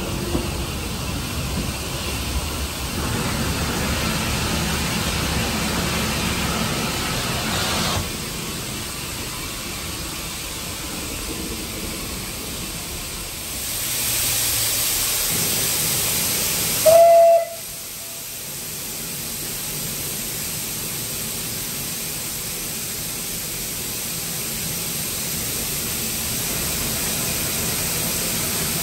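Steam locomotive (L&YR Class 25 0-6-0 No. 52044) hissing steam, with a louder high hiss building a little past halfway, then one short, loud whistle blast.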